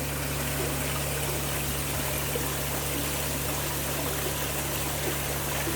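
Water running steadily down a model waterfall, with a constant low machine hum underneath.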